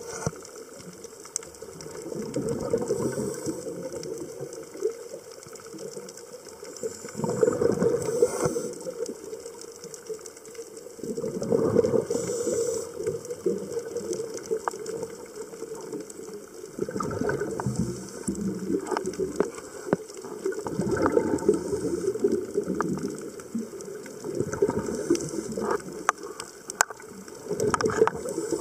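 Underwater, a scuba regulator's exhalations: bursts of bubbling noise about every four seconds, with scattered sharp clicks in between.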